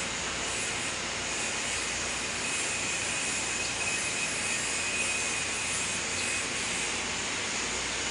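A steady, loud rushing hiss, with a faint high whine in the middle.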